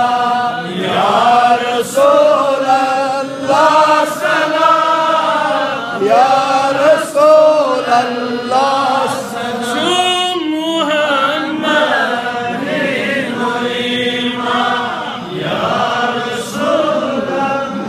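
A man's voice chanting a melodic recitation into a microphone, in long held phrases whose pitch bends and wavers, with short breaks between phrases.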